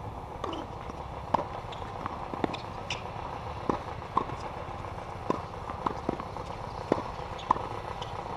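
Tennis balls being struck and bouncing on hard courts: a dozen or so short, sharp pops at irregular intervals, some with a brief ringing tone, over a steady low outdoor hum.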